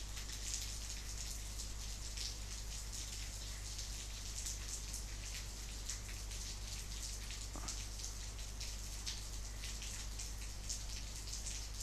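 Rain falling outside, heard through closed windows as an even hiss dotted with many small drop ticks, over a steady low hum.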